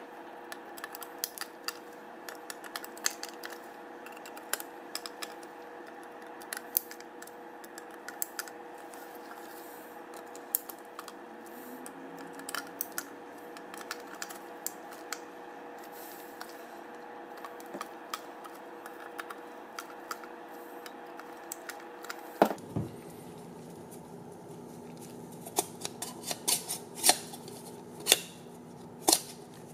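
Small screws being tightened down on an X-class drone frame by hand: scattered light clicks and ticks of the tool and parts, over a steady hum. A sharper knock comes about 22 seconds in, with louder clicks near the end.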